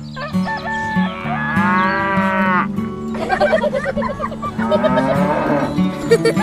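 Cow mooing, two long moos, added as a sound effect over background music with a steady low beat.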